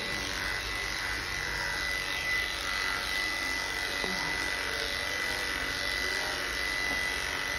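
Cordless electric pet clippers running with a steady buzz and a constant high whine as they shave a long-haired cat's fur.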